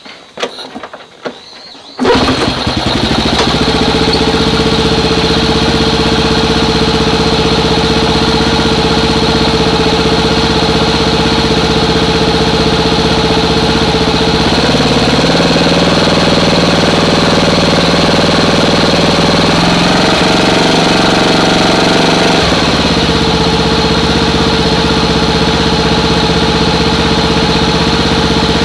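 Honda Super Cub 90 single-cylinder four-stroke engine, bored up to 105cc, comes in suddenly about two seconds in after a few faint clicks, then idles steadily. About halfway through its speed rises a little, then drops back to idle. It runs evenly with no abnormal noise: the sound of a healthy engine.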